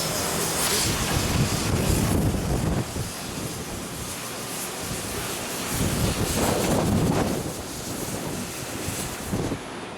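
Wind buffeting the microphone, swelling in two gusts, about a second in and again past the middle.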